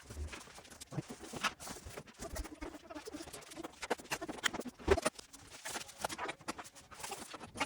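Irregular small clicks, taps and scratching of hard parts being handled, with one sharper click about five seconds in.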